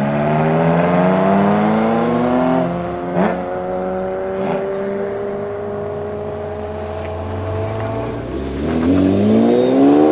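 Supercar engine accelerating hard: its pitch climbs, drops at a gear change about two and a half seconds in, then holds and slowly rises before dipping and climbing again near the end. Two short sharp cracks cut through a few seconds in.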